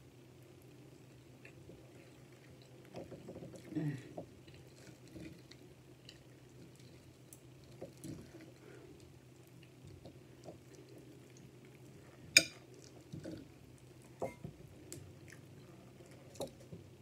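Quiet close-up eating sounds: chewing a mouthful of black beans and rice, with scattered small clicks of a fork against a plate while steak is cut, and one sharp clink about twelve seconds in.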